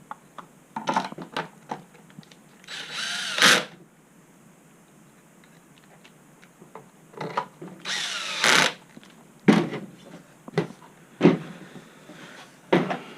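Electric drill/driver running twice, about a second each time, on the board's screws, its pitch rising and falling, with sharp clicks and knocks of parts being handled in between.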